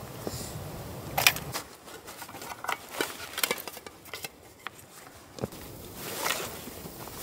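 A single sharp knock of a mallet about a second in, followed by scattered rustles and light clinks of camping gear being handled and packed into a backpack.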